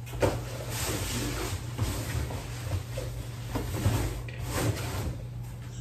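Off-camera handling while packing gift boxes: a series of short rustles and light knocks. A steady low hum runs underneath.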